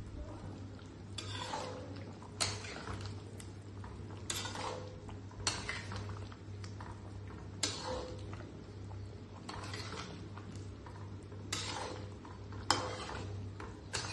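A metal spoon stirring curry in a cooking pot. It strikes the pot with a sharp clink about every one to two seconds, and each clink is followed by a short scrape.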